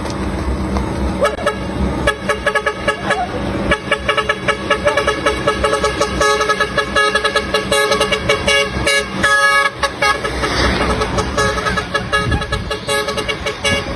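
A truck's musical horn playing a quick, rhythmic TikTok-style tune in short repeated notes over the truck's engine as it passes. The tune fades about ten seconds in.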